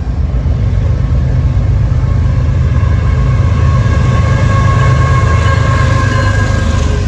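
Amtrak diesel locomotive running close by, a heavy steady low rumble that grows a little louder after the first second, with a faint high whine in the middle of the stretch.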